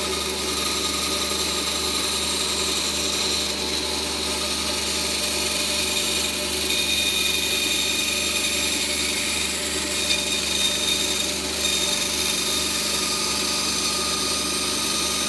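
A power tool running steadily under load as it cuts a plastic dust-outlet adapter to size.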